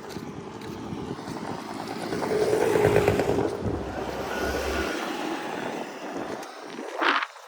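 A motor vehicle passing close by, growing louder to a peak about three seconds in, then fading.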